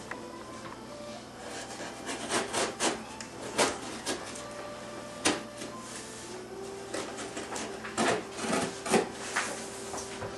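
Knife slicing open a cardboard box: a series of short scraping, rasping cuts through the cardboard, with a sharp click about five seconds in.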